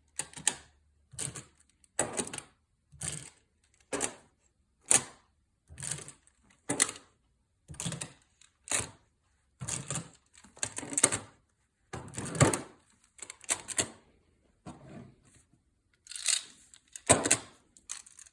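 Magna-Tiles magnetic plastic tiles clacking as they are snapped onto the build one after another: a string of short, sharp clicks roughly every half second to second, unevenly spaced.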